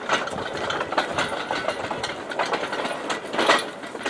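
A vehicle running on a homemade 15-inch-gauge track over single-blade points, with a steady mechanical rattle and many irregular metallic clicks and knocks.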